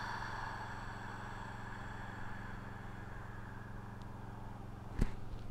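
A long, slow exhale through the mouth that fades out over the first couple of seconds, over a low steady hum; a single sharp click about five seconds in.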